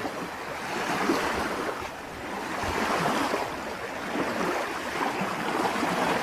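Small waves lapping on a sandy lakeshore: a steady wash of water that swells and eases every second or two.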